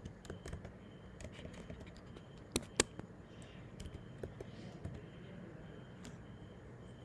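Slow, irregular keystrokes on a computer keyboard, with two sharper key clicks a little under three seconds in.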